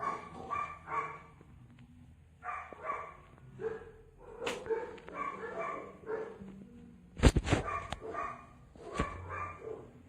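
A dog whining and yipping in short repeated bursts, with three sharp knocks, the loudest about seven seconds in.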